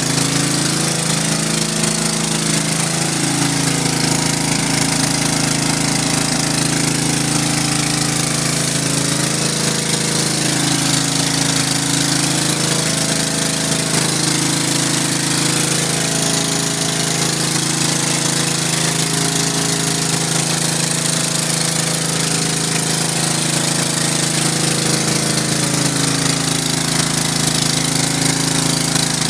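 Gas pressure washer's Subaru engine running steadily, with the hiss of water spraying from a 15-inch surface cleaner onto concrete.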